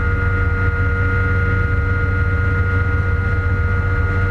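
MD 530F helicopter in flight, heard from inside the cockpit: the steady drone of the main rotor and its Rolls-Royce 250 turboshaft engine, with steady high whining tones over it.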